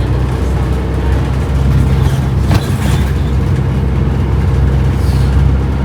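Bus engine and road noise heard inside the cabin of a moving bus: a steady low drone, with a brief knock about two and a half seconds in.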